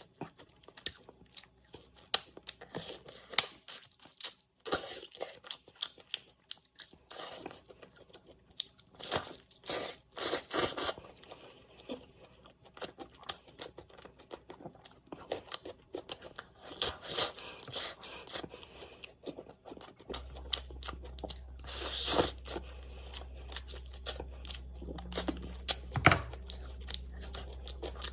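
A person chewing and biting food close to the microphone, with many irregular short clicks and smacks. A steady low hum comes in about two-thirds of the way through.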